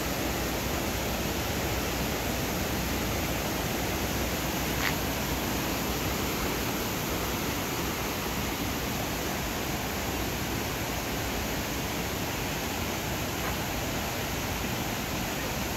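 Fitzsimmons Creek's whitewater rushing, a steady, even wash of water noise, with one faint click about five seconds in.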